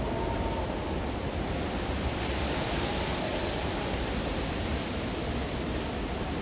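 Steady blizzard wind with a deep rumble, swelling into a hissing gust about two seconds in, and a faint howling whistle at the start.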